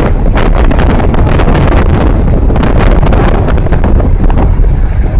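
Heavy wind buffeting the microphone on a ship's open deck, in loud irregular gusts over a deep rumble.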